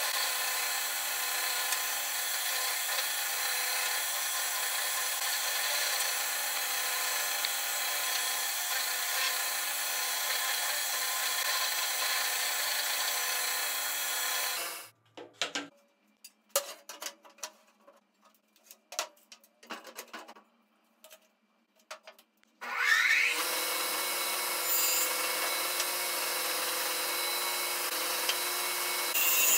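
Electric motor of a bench-mounted horizontal drill chuck running steadily while a 12 mm bit bores mortises in wood. It shuts off about halfway, leaving a few light knocks of wood being handled, then a table saw motor starts with a short rising whine and runs steadily.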